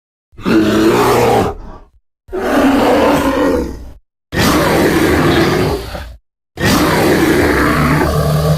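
Designed Therizinosaurus creature calls built partly from bear sounds: four separate loud, bear-like calls, each about one and a half to two seconds long, with short silent gaps between them.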